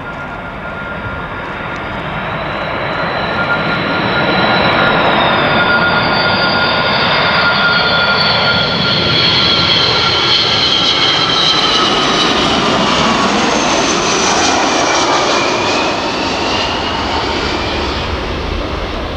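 Four CFM56 turbofan engines of a Boeing E-3F AWACS on a low flypast: the jet noise with a high whine builds over the first few seconds as it approaches and stays loud through the middle. Then the whine slides down in pitch as the aircraft passes and draws away.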